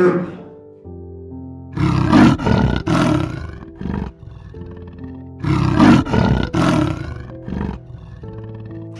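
A large animal roaring twice, each a loud rough roar of a couple of pulses followed by a short grunt, over soft background music with sustained notes.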